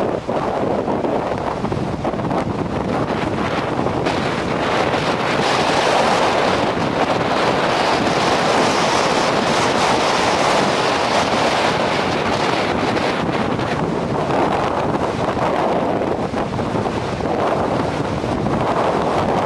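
Strong onshore wind buffeting the microphone over heavy storm surf breaking on the beach. The rushing noise swells for several seconds in the middle.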